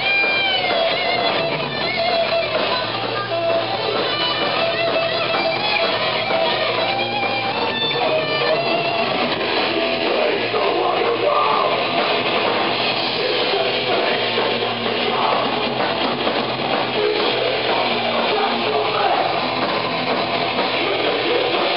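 Thrash metal band playing live: distorted electric guitars and a drum kit. Held, bending notes stand out over roughly the first half before the playing thickens into a denser wall of sound.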